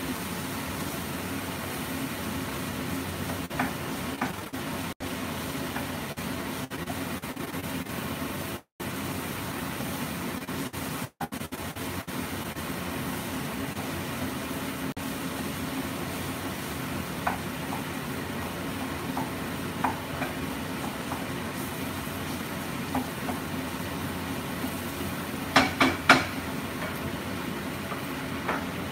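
Mixed vegetables and boiled potatoes sizzling in a frying pan over a gas flame while a wooden spatula stirs and scrapes them, with light clicks of the spatula against the pan. Near the end there is a quick cluster of three or four sharp knocks.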